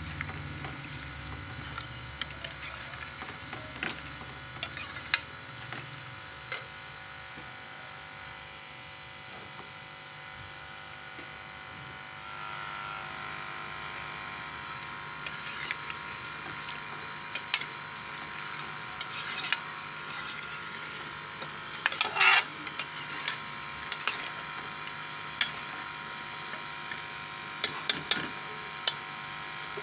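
Metal spoon stirring in a metal pot of curry, clinking and scraping against the pot now and then over a steady hum; the loudest scrape comes about two-thirds of the way through.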